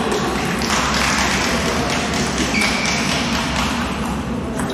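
Steady background noise of a table tennis hall between rallies, with a few faint taps.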